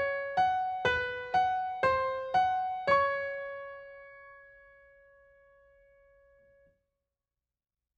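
Background music ending: a slow melody of single piano-like keyboard notes, about two a second, closing on a long note that fades away, then cuts to silence.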